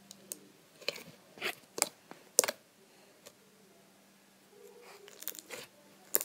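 White glue slime being squeezed and kneaded by hand in a plastic bowl, giving a run of sharp, wet pops and clicks as it is squished. A lull while it is stretched out, then more quick pops near the end.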